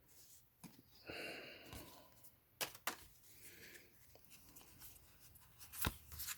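Faint handling of Pokémon trading cards: soft rustling with a few sharp clicks as the cards are shuffled and flipped.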